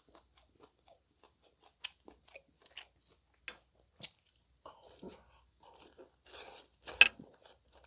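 A person chewing and crunching food close to the microphone: scattered wet mouth clicks and bites, coming thicker in the second half, with one sharp louder crunch about seven seconds in.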